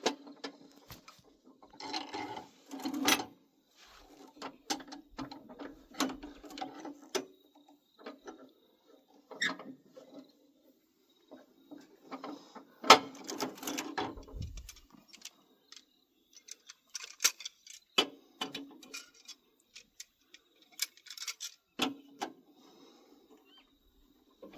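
Irregular metallic clanks, clicks and rattles of hand tools and a bench vise working on a stainless steel solar bore pump, as the vise is repositioned and the threaded pump section is worked loose.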